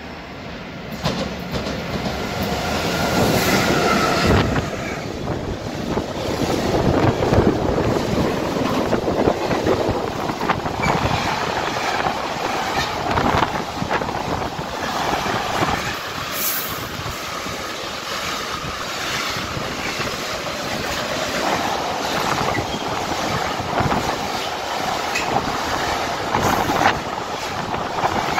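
Freight train passing close by. The locomotive's rumble builds quickly over the first few seconds, with a brief wheel squeal. Then a long string of wagons carrying semi-trailers rolls past in a steady rumble, with the clickety-clack of wheels over rail joints.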